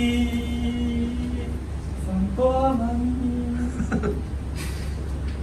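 A man singing alone, holding a long steady note on the end of a line, then singing a second short phrase that ends about four seconds in. A low steady hum lies underneath.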